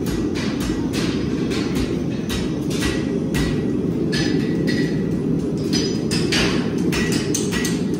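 Steel hoof rasp filing a horse's hoof wall in quick, even strokes, about two to three a second, while the heels of a club foot are lowered.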